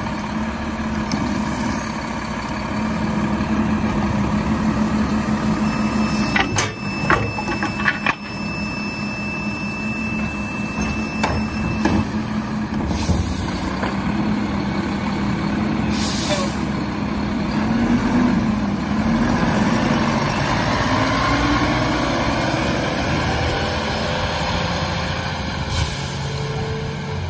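Mack LEU McNeilus Autoreach garbage truck's diesel engine running, revving up and down about two-thirds of the way through. There is a cluster of clunks about a quarter of the way in and a few short air-brake hisses.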